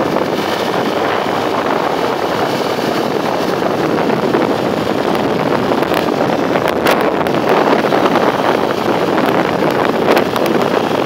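Motorcycle riding at road speed: steady wind rush over the microphone mixed with the engine and road noise, holding an even level throughout.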